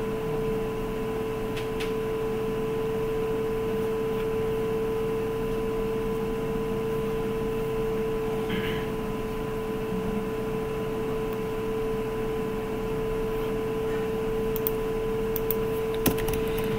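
Steady background hum with one constant mid-pitched tone over it. A few faint clicks come near the end.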